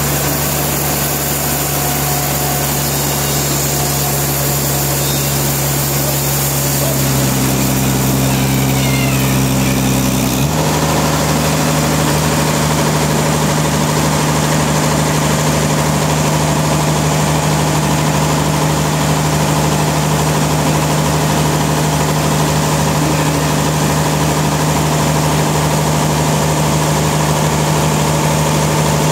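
Sawmill machinery running steadily with a loud engine-like hum; its note changes about seven seconds in and again about ten seconds in, then holds steady.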